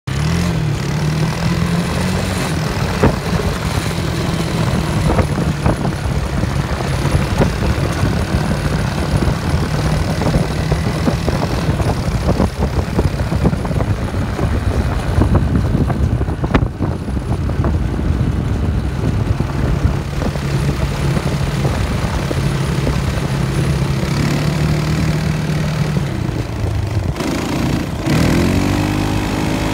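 Quad bike engines running steadily as the ATVs drive over sand, a continuous low engine drone that shifts and glides in pitch near the end.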